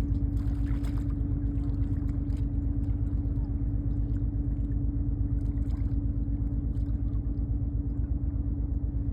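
Ship's engine running steadily: a low, throbbing drone with a constant hum.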